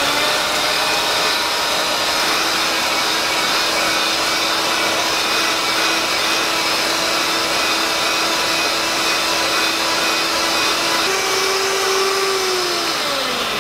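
Electric hand mixer with wire whisk beaters running steadily as it whips softened butter in a stainless steel bowl. Its pitch steps up slightly near the end, then falls away as the motor winds down.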